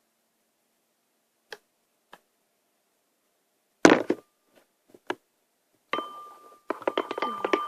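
Scattered clicks and clinks and one louder knock about four seconds in, like a plastic pen knocking against a bowl while stirring slime. From about six seconds a busier stretch of clatter begins, with a steady high tone running under it.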